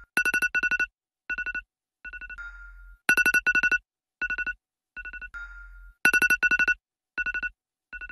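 Phone alarm ringing to wake a sleeper: a repeating electronic beeping pattern, with clusters of rapid high-pitched beeps coming back about every three seconds.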